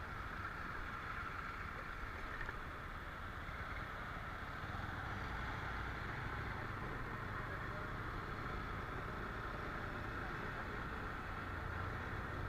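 Motorcycle running steadily on the road, a steady low rumble under a noisy hiss.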